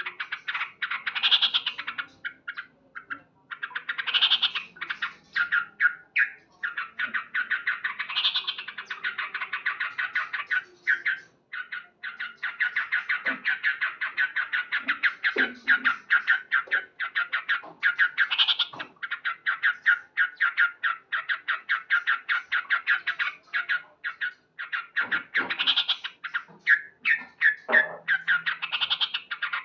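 Male yellow-vented bulbul (trucukan) calling loudly: long runs of rapid, chattering short notes, broken every few seconds by louder, brighter phrases. It is the excited call of a male in breeding condition, singing to challenge a rival.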